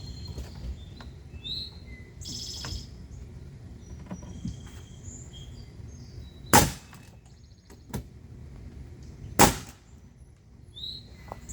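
Two loud, sharp impacts from the workshop construction, nearly three seconds apart, with a fainter click between them. Birds chirp throughout.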